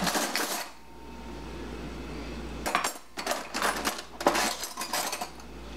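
Metal cutlery and utensils clinking and rattling as a hand rummages through a packed kitchen drawer. A short clatter at first, a lull of about two seconds, then a run of repeated clinks and rattles.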